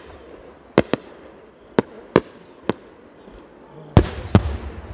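Aerial firework shells bursting in a series of sharp bangs, about seven in five seconds, spaced irregularly. The two loudest come close together near the end and leave a low rumbling echo.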